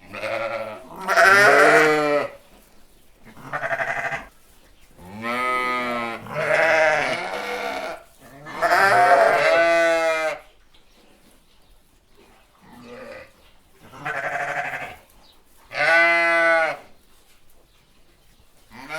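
Sheep bleating over and over: about eight wavering calls, each lasting one to two seconds, with short pauses between them. The longest call comes around the middle and a fainter one follows a few seconds later.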